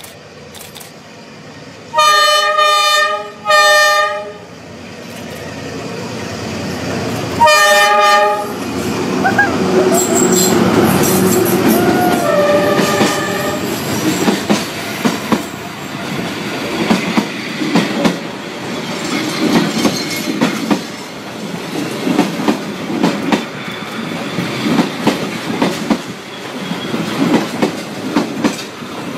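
Train sounding its horn in two long blasts about two seconds in and a shorter blast near eight seconds, then its carriages rolling past at very close range with a few brief wheel squeals and a steady clickety-clack of wheels over the rail joints.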